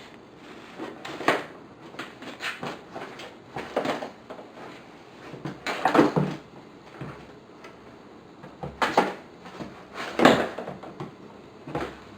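A cat moving about in a cardboard box: scattered scuffs, rustles and knocks of the cardboard, with louder bumps about a second in, around six seconds, and twice near the end.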